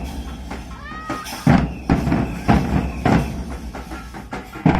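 Dhak, the large two-headed barrel drum of Bengal, beaten with sticks in heavy strokes about twice a second, starting after a short lull about a second and a half in. A brief high gliding call sounds about a second in, during the lull.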